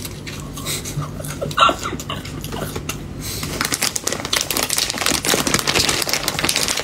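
A thin plastic food bag crinkling and rustling as hands dig into it, starting about halfway through after a few light clicks.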